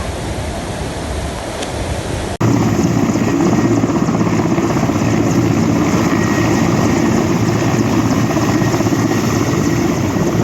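Steady rush of floodwater, then after an abrupt cut a louder, steady helicopter running overhead.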